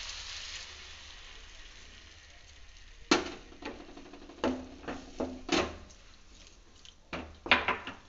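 Water poured into a pan of hot oil with frying tomato, onion and spices sizzles, the hiss fading over the first second or two. Then a wooden spatula stirs the mixture, knocking and scraping against the pan several times.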